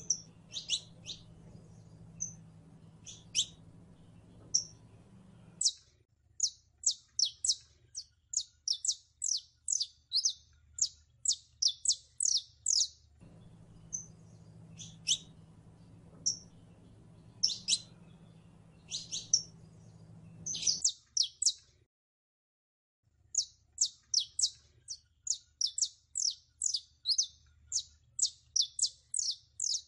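Saffron finch singing: long runs of quick, sharp, high notes, about three a second, broken by short pauses between phrases.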